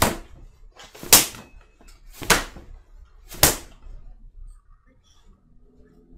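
Four loud, sharp slaps about a second apart: a large slab of salo (pork fat) swung overhead and smacked down hard.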